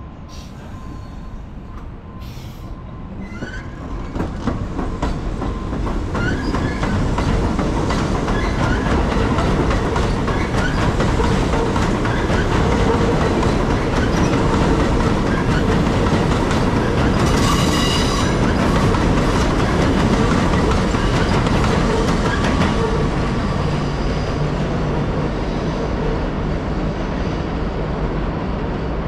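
R62A subway train passing on an elevated steel structure: a rumble that builds, peaks and fades, with the clickety-clack of wheels over rail joints. A brief high wheel squeal comes about 17 seconds in.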